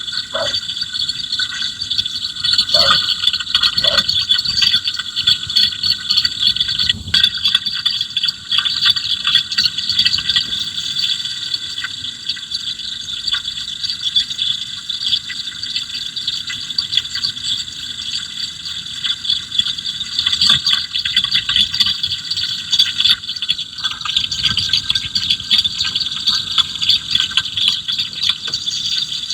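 Running engine heard through an electronic stethoscope's probe: a steady hiss with dense, rapid mechanical clicking, amplified from whichever engine part the rod is pressed against.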